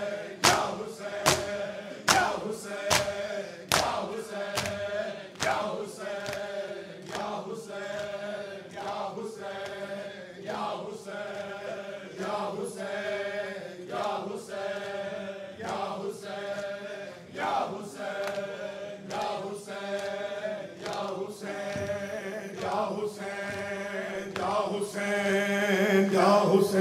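A group of men chanting a noha (Shia lament) in unison, over the crowd's rhythmic chest-beating (matam) at about one strike a second. The strikes are sharpest in the first few seconds, and the sustained chanting grows fuller after that.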